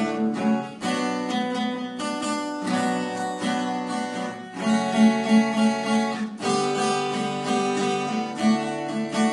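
Acoustic guitar strumming chords, changing chord every couple of seconds: the instrumental intro of a sertanejo song before the vocals come in.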